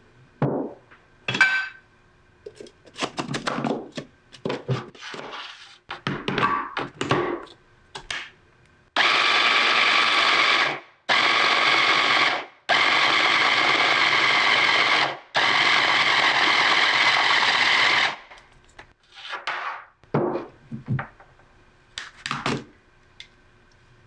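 Electric mini chopper running in four long pulses with short pauses between, blending crumbly tart-crust mixture into a dough. Before and after the pulses come knocks and clinks as the bowl, lid and motor unit are handled.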